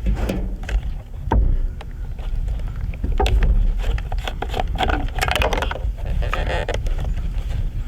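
Irregular knocks, thuds and rustling, as of cut tree limbs and logs being handled and dragged, over a steady low rumble.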